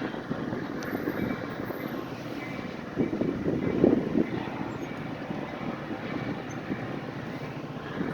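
Metra commuter train rumbling as it moves through the station, swelling louder about three to four seconds in.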